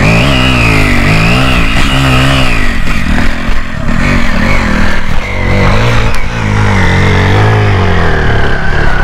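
Yamaha motorcycle engine revving up and down in repeated surges as the bike climbs a rough off-road slope, with a knock about six seconds in.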